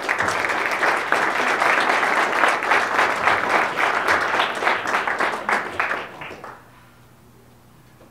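Audience applauding, a dense patter of many hands clapping that dies away after about six seconds.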